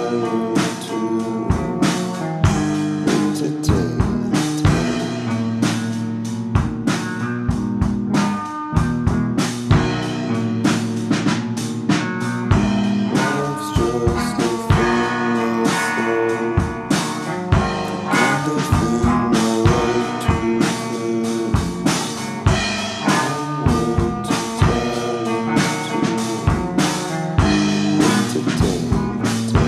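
Instrumental jam: a steady drum-kit beat under electric guitar and keyboard parts.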